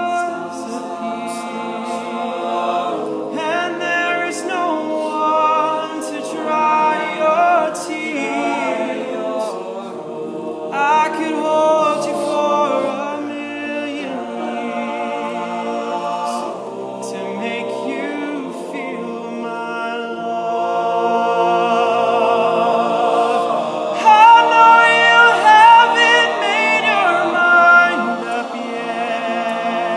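All-male a cappella group singing a slow ballad: a lead voice with vibrato over sustained backing harmonies, with no instruments. The singing grows louder about three-quarters of the way through.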